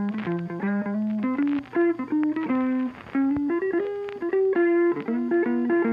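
Background music: a melody of plucked guitar notes moving in steps.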